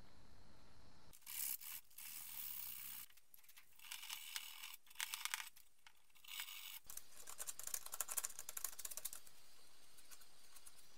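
A plastic spreader scraping and scratching as body filler is mixed and worked, in a series of short scratchy strokes with brief pauses, starting about a second in and stopping shortly before the end.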